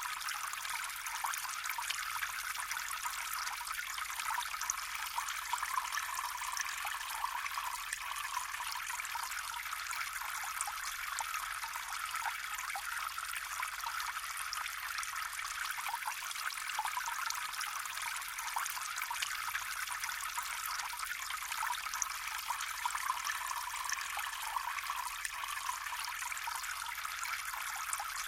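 Flowing water trickling steadily, with many small splashes and gurgles running through it.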